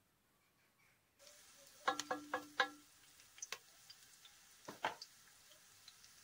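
A metal spoon knocked four times in quick succession against an aluminium cooking pot, each strike ringing with a clear metallic tone, followed by a few lighter clicks and two more knocks. Under it, sliced onions sizzle faintly in hot oil.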